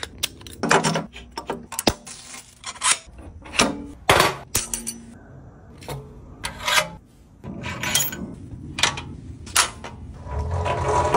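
Metal parts of a Badland 3-ton off-road floor jack being handled and fitted together by hand: a run of separate clicks, clinks and knocks of steel pins, clips and fittings.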